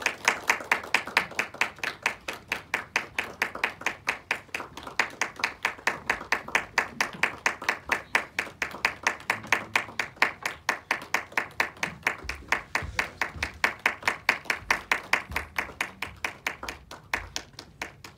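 Audience applauding, with quick, even claps close by that fade away near the end.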